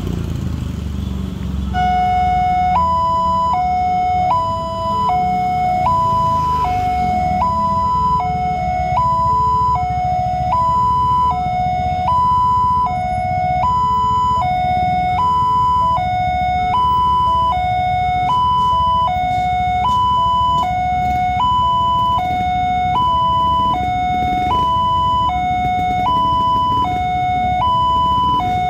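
Railway level-crossing warning alarm sounding a steady two-tone electronic high-low signal that alternates about once a second and starts about two seconds in, over motorcycle and road-traffic noise. It warns of an approaching train as the crossing barrier closes.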